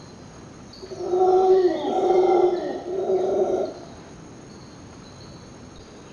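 An animal calling: three drawn-out, pitched howling calls in quick succession from about a second in, over faint high chirping.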